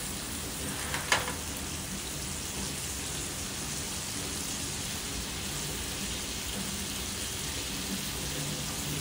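Steak frying in butter in a stainless steel pan on a portable camp stove: a steady sizzle, with one sharp click about a second in.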